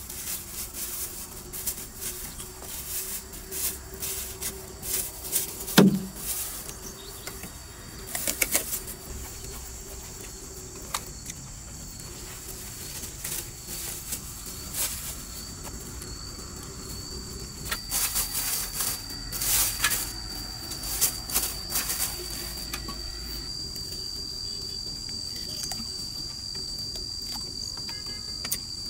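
Scattered clicks and knocks of camp cookware and utensils being handled, with one louder thump about six seconds in. A steady high cricket trill comes in about halfway and keeps going.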